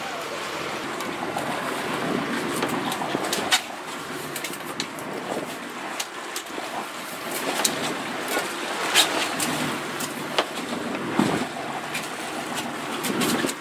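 Wind and sea noise on a fishing boat, with a few sharp clicks and knocks scattered through it.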